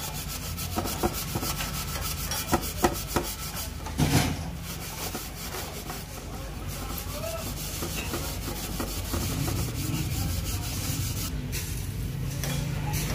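Hand scrubbing a rust remover over a steel motorcycle mudguard: a steady rubbing and scraping, with a few sharp knocks in the first four seconds.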